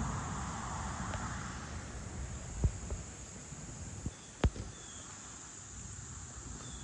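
Steady high-pitched insect chorus over a low rumble of wind or handling noise, with two sharp knocks about two seconds apart in the middle.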